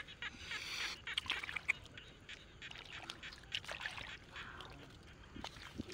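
Hands scrabbling among mud clams and mussel shells in shallow water: a quick, irregular run of clicks and clinks as shells knock together, with water splashing and a brief splashy rush about a second in.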